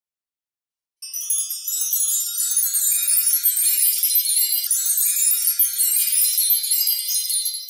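A logo-animation sound effect: a dense, high-pitched shimmer of tinkling bell-like chimes that starts suddenly about a second in and cuts off at the end.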